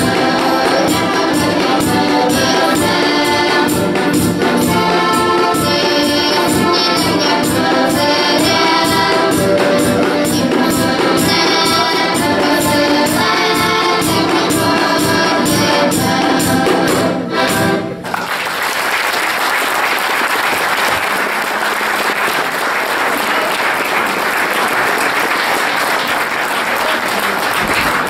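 Children's accordion ensemble playing a folk tune together with a steady beat; the music stops about 18 seconds in and audience applause follows.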